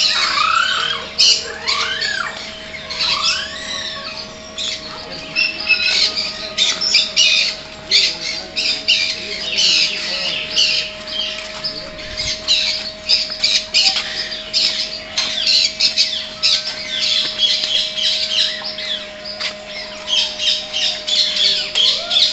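Many birds in a walk-through aviary calling at once: a dense chatter of short, high chirps and squawks, with a few arching calls in the first few seconds. A steady faint tone sounds underneath.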